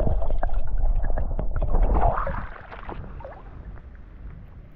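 Muffled river water sloshing and gurgling around a camera held underwater, with scattered small knocks. About two and a half seconds in it dies down to a faint wash.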